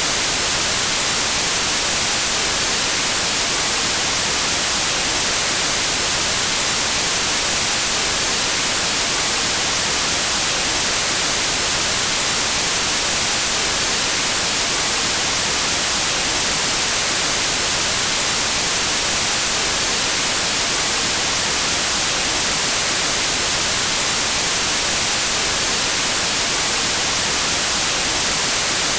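CRT television static with no signal: a steady, loud hiss, strongest in the treble.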